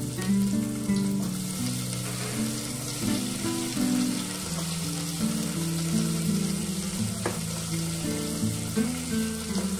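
Chopped onion, tomato and green chilli frying in mustard oil in an open aluminium pressure cooker: a steady sizzle, with a single sharp tick about seven seconds in. Background music plays alongside.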